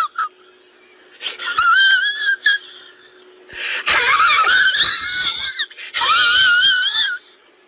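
High-pitched, warbling voice-like cries in several bursts, the longest rising and wavering in pitch, from a sound-effects clip.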